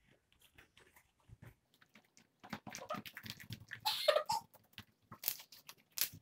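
Homemade slime being kneaded, pressed and stretched by hand on a table, making wet clicks and crackling pops that grow busier and louder after the first couple of seconds.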